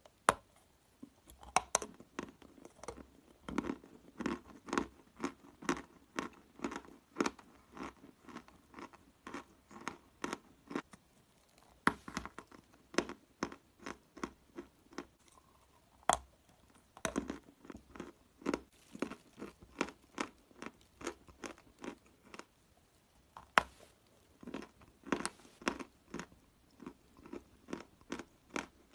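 Dry edible chalk being bitten and chewed close to the microphone. Crisp crunches come in runs of about one or two a second, with short pauses and a few sharper, louder bites between the runs.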